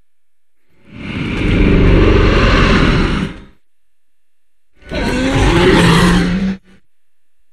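Two separate Giganotosaurus growl sound effects. The first swells in about a second in and lasts over two seconds; the second, shorter one starts near the five-second mark and ends abruptly.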